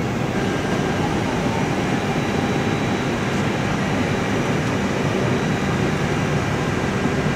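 Steady rushing hum inside a parked Airbus A321's cockpit with its systems powered up: air-conditioning airflow and equipment fans, even and unbroken.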